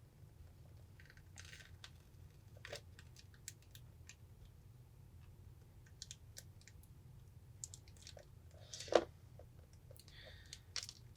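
Scattered small clicks and crackles of a tablet's shattered screen glass cracking as a spudger pries it off its adhesive, with one sharper snap about nine seconds in.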